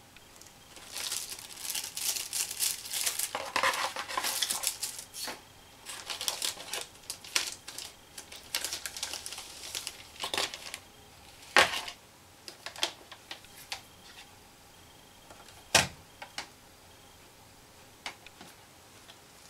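Plastic packaging crinkling and rustling as a USB floppy drive is unwrapped and handled, coming in dense bursts through the first half and more sparsely afterwards. Two sharp knocks, the loudest sounds, come a little past the middle and again later.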